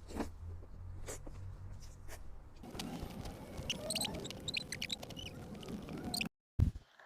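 Close-up eating sounds of soft, molten chocolate cake: wet, sticky smacking and squelching with short high squeaks. They grow busier about three seconds in and cut off suddenly near the end.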